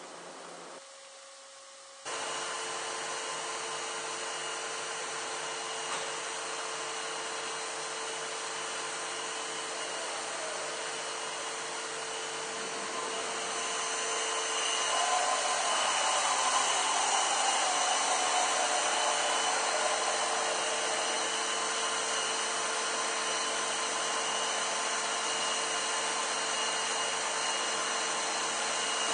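High-speed wheel spindle of a 1990 NOVA CNC grinder running with a steady whine over a hiss, turning a small grinding wheel. It comes in suddenly about two seconds in and grows louder about halfway through, as the wheel works inside the bore of a workpiece.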